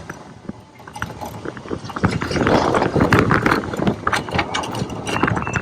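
Roller coaster train and track machinery clattering, a dense rattle of quick mechanical clicks that builds up about two seconds in.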